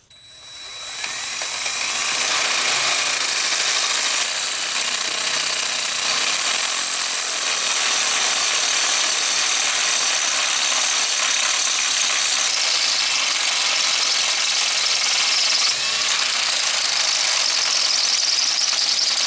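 Cordless drill running steadily under load, its bit cutting into a worn bolt hole in the tractor's block to take a threaded repair insert. It spins up about half a second in, holds steady, and dips briefly near the end.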